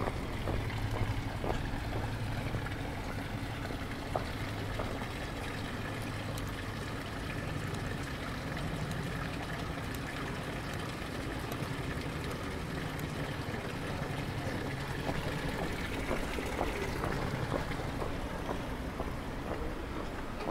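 Water running from the spouts of a stone fountain and splashing steadily into its basin.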